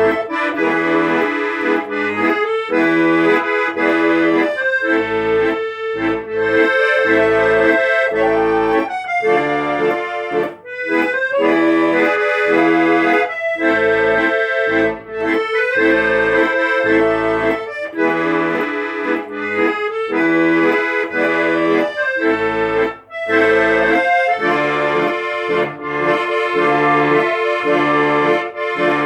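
Accordion playing an instrumental melody over a steady, regular bass-and-chord accompaniment.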